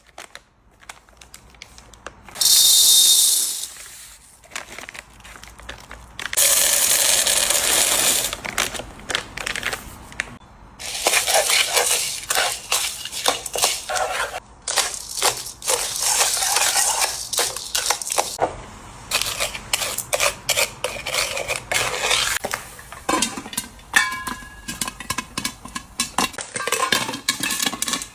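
Popcorn being made in a pan: stretches of hissing and kernels rattling against the metal, then from about the middle on many quick, sharp clicks and pops.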